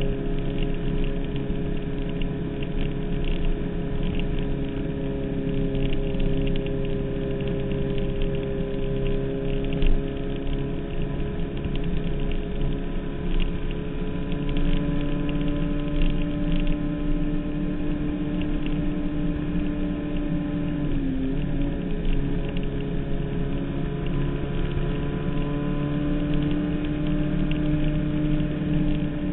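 Suzuki Hayabusa's inline-four engine running at a steady, sustained speed, heard from the rider's seat. The engine note holds an even pitch, with one brief dip about two-thirds of the way through before it settles again.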